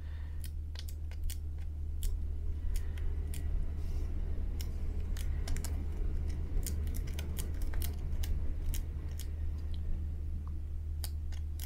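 Irregular light clicks and crinkles of a paper-backed adhesive dust-removal sticker being dabbed and pressed against the back of an iPad to lift dust, over a steady low hum.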